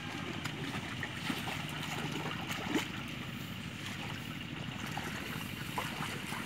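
Water sloshing and splashing around a farmer's legs as he wades through a flooded rice paddy, over a steady rush of wind on the microphone, with a few small splashes or ticks.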